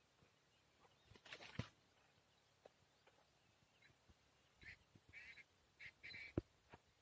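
Faint rustle with a soft knock about a second and a half in, then a bird calling four times in short bursts, with a sharp knock near the end.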